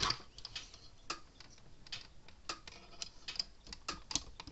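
Scattered light clicks and taps, unevenly spaced, of small parts being handled while a capacitor is fitted back onto a fence charger's circuit board.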